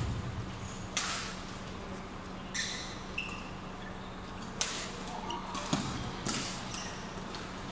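Badminton rally: a series of sharp racket strikes on the shuttlecock, about a second apart, with short shoe squeaks on the court floor between them.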